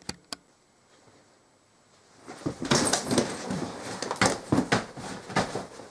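Hands slapping and thumping a loaded canvas rucksack, with fabric, straps and buckles rustling and a body landing on a carpeted floor: a fast, dense run of sharp smacks starting a little after two seconds in. Two sharp clicks right at the start.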